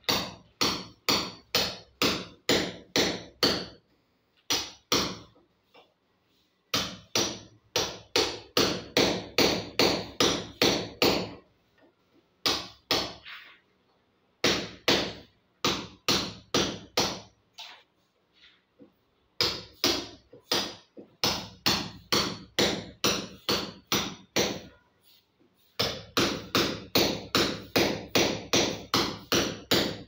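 Hand hammer striking a chisel into a plastered masonry wall, with sharp blows about three a second in runs of several seconds and short pauses between them.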